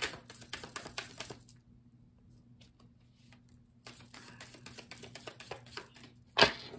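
A deck of tarot cards shuffled by hand: a quick run of soft card clicks, a pause of about two seconds, then another run. Near the end there is a single louder thump.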